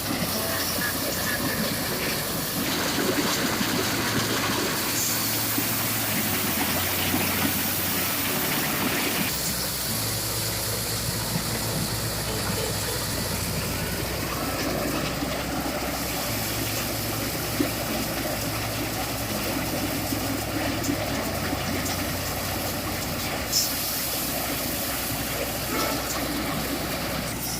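Engine-driven rice thresher (erek) with a built-in blower running steadily: a low engine hum under a broad rushing noise, with a couple of brief sharp clicks in the second half.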